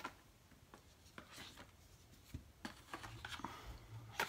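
Faint rustling and scattered light clicks of packaging being handled as a product is pulled out of a cardboard subscription box.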